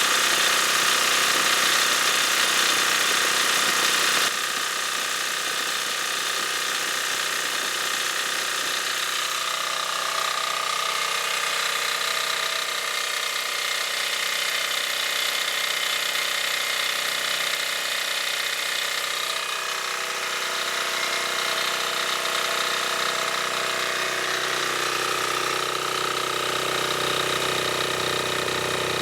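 ETQ DG7250LE portable diesel generator running steadily, a dense mechanical clatter with a steady whine, dropping somewhat in level about four seconds in.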